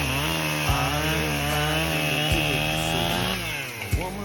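Echo 7310 two-stroke chainsaw cutting into hard locust wood, its engine held at a steady, high pitch under load, then dropping in pitch near the end.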